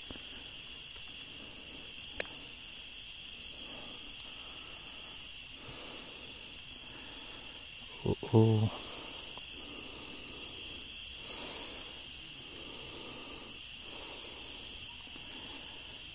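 Steady night chorus of tropical insects, several high-pitched drones layered over each other. A single sharp click comes about two seconds in, and a brief low voiced sound about eight seconds in.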